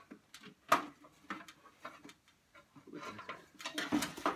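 Scattered light clicks and knocks of hands handling a cardboard box and the vintage projector-record player parts inside it, with a busier stretch of rustling and clatter near the end.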